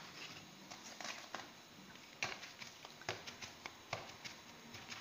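Faint, irregular soft taps and light rubbing as squares of semolina dough are patted and straightened by hand on a metal tray.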